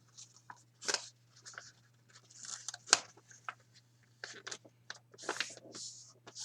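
A sheet of A4 paper being folded and creased by hand: irregular crinkling and rustling with short pauses as the flaps are bent inward and pressed flat.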